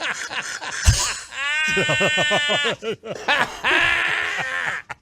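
A man's wheezing fit of laughter: a long, high squealing wheeze about a second and a half in, then breathy, hissing gasps that break off near the end.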